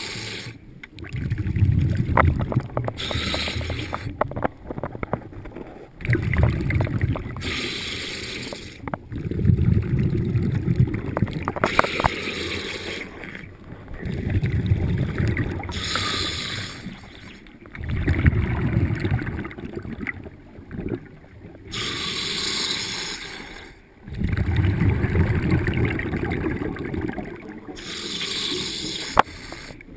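Underwater scuba breathing heard from the diver's own regulator: about six breath cycles, each a short hissing inhale followed by a longer low bubbling rush of exhaled air.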